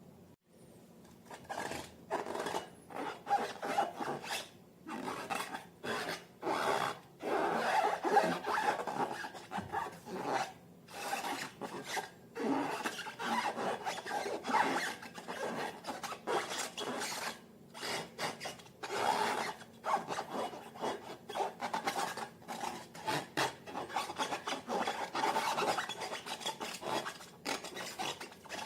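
Slime being worked and mixed, heard as many irregular rough rubbing and scraping strokes. They start about a second in.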